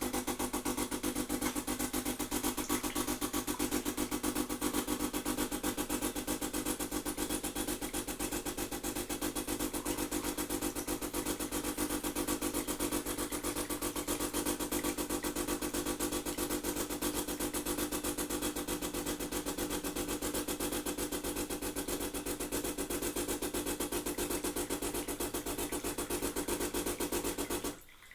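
DeLonghi ESAM 6600 coffee machine running its switch-on cycle: a fast, even pulsing buzz with a steady squeaking tone on top, which cuts off suddenly near the end.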